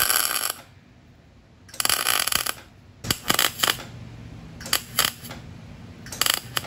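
Wire-feed (MIG) welder crackling in a run of short bursts with pauses between, welding a nut onto the stub of a snapped bolt in an aluminium motorcycle crankcase so that the bolt can be turned out.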